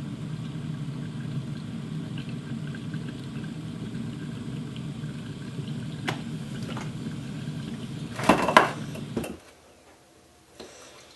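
Russell Hobbs electric kettle rumbling steadily as it heats to the boil, with a few light ticks and then a loud burst of noise about eight seconds in. The rumble cuts off about nine seconds in as the kettle finishes, and a single light clunk follows.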